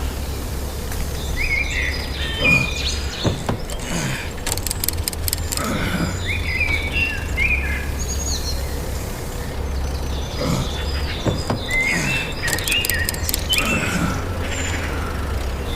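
Outdoor nature ambience of birds chirping in short rising and falling calls over a steady low hum, repeating about every eight seconds like a looped background track.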